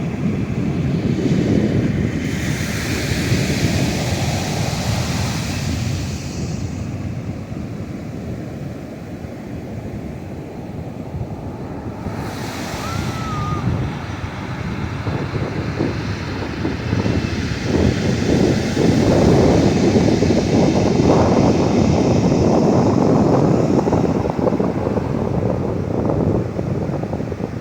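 Ocean surf: waves breaking and washing in, the rush swelling and easing in surges. There is a hissy wash a couple of seconds in, a smaller one near the middle, and the loudest, longest surge in the latter part.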